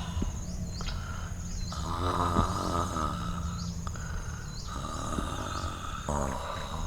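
Tropical forest ambience: insects trilling and chirping steadily, with a few pitched animal calls that fall in pitch, over a low rumble.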